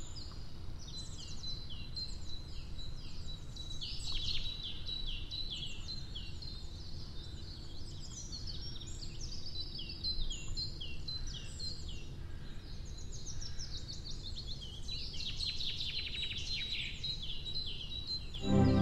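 Woodland birds chirping and singing: many quick, high notes sweeping downward, over a low steady background rumble. Music comes in right at the end.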